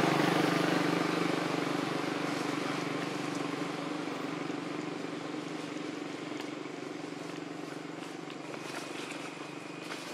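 A motor vehicle's engine droning and fading steadily as it moves away, with a few faint clicks near the end.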